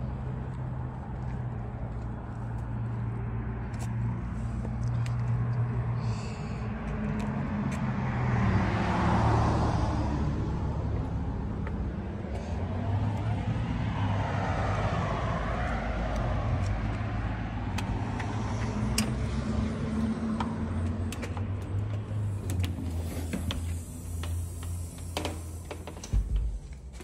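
Road traffic: a steady low hum with cars passing twice, swelling and fading. Near the end the traffic falls away and there are a couple of sharp knocks.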